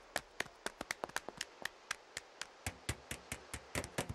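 Quick, sharp footsteps from an anime soundtrack: a steady run of light taps, about six or seven a second.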